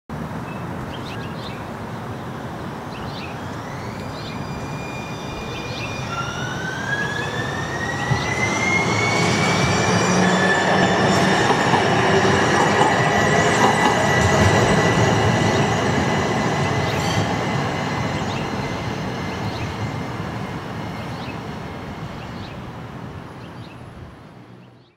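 A rail vehicle, likely the streetcar, passing by. A rumble grows to its loudest about halfway and then fades. A high whine rises in pitch and then holds steady over it.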